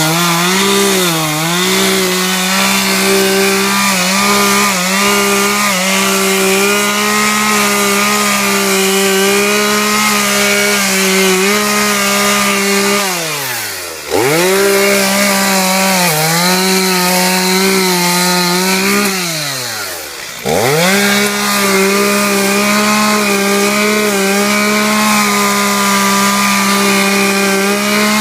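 Chainsaw running at full throttle cutting wood, its pitch sagging slightly now and then as the chain bites. It drops back toward idle twice, about halfway through and again about two-thirds through, and revs straight back up each time.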